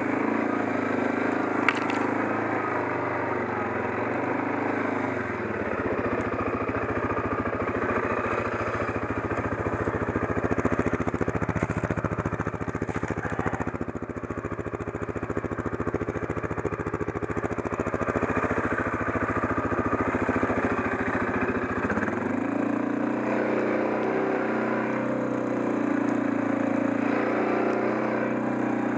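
CFMOTO 500 quad's single-cylinder engine running while it drags a cut tree trunk on a tow strap over the ground. For most of the middle stretch the note turns deeper and rougher under the load, then it settles back to a smoother, steady running note. A sharp click comes about two seconds in.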